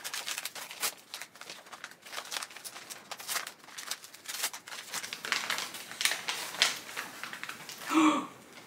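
Paper packaging crinkling and rustling in quick, irregular crackles as a wrapped plant is pulled from a cardboard box and unwrapped. A short vocal exclamation comes near the end.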